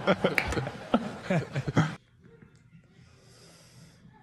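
A man chuckling and speaking, cut off abruptly about two seconds in. Then only faint handling noise.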